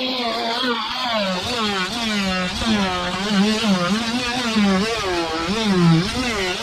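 Cordless oscillating multi-tool running as its blade cuts into rotted sailboat deck core. Its whine dips in pitch and recovers over and over as the blade bites and is eased off.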